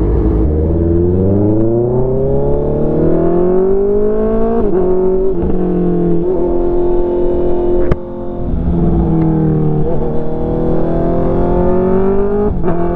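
Honda CB650R's inline-four engine pulling hard up through the gears, its pitch climbing steadily and then dropping sharply at each quick-shifter upshift, several times over. The exhaust runs with the catalytic converter deleted and a long side-mounted canister.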